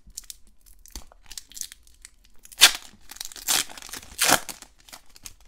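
Foil trading-card pack wrapper being torn open and crinkled by hand, with faint crackling throughout and three louder rips in the second half.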